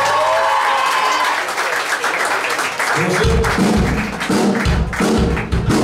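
A live rock band lets its last notes ring out, and the crowd applauds and cheers. About three seconds in, the drums and bass start up with a steady beat.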